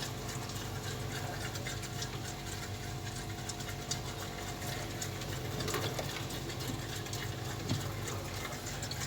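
Polytron refrigerator's compressor running with a steady hum, just recharged with freon and cooling again. A few faint clicks come over it.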